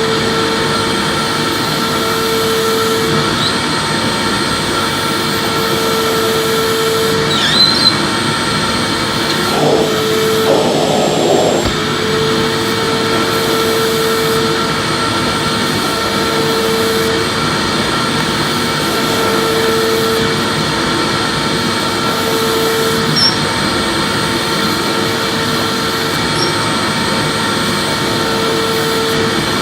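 Electric vacuum cleaner running steadily while vacuuming, its motor whine and airflow hiss constant, with one tone in the whine coming and going every few seconds and a couple of brief scuffs.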